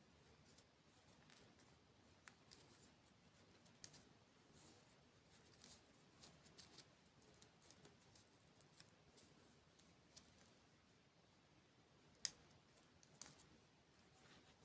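Faint close-miked eating sounds: a run of small, crisp, irregular clicks and crackles from chewing, with two sharper clicks near the end.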